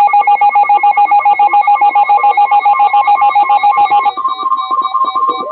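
Weather alert radio alarm sounding ahead of a severe thunderstorm warning: a loud electronic trill of several tones pulsing about eight times a second. A little past four seconds in it changes to a higher single pulsed tone.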